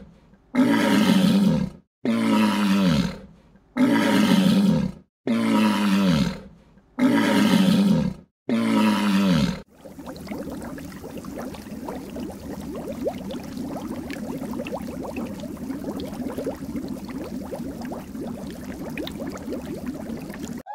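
An animal giving six loud, deep calls in a regular series, each about a second long and sliding down in pitch, one every second and a half. After about ten seconds the calls stop and only a steady, low background rumble with faint crackle remains.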